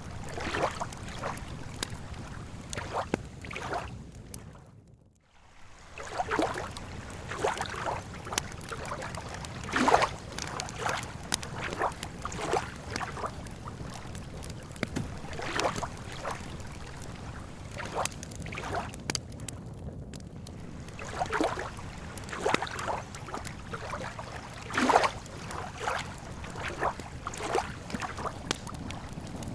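Campfire crackling, with irregular sharp snaps and pops from the burning wood over a steady low rumble. The sound dips almost to nothing for a moment about five seconds in, then comes back.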